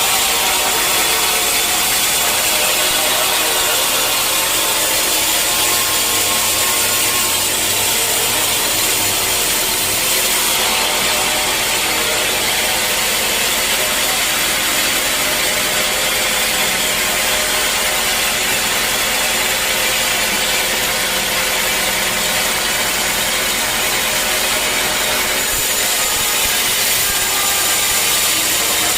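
Sawmill saw cutting through a mahogany log: a loud, steady, continuous cutting noise with a constant machine whine under it. The sound shifts slightly about ten seconds in and again near the end.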